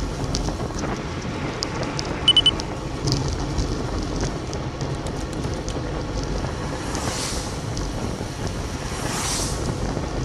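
Wind buffeting a bicycle-mounted camera's microphone at about 24 mph, with tyre hiss on a wet road. About two seconds in there are three short electronic beeps. Two cars swish past on the wet tarmac near the end, each sound swelling and then fading.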